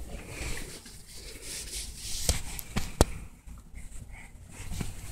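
Handling noise from a phone held close: rustling with a few sharp clicks or knocks about two to three seconds in, the loudest near three seconds.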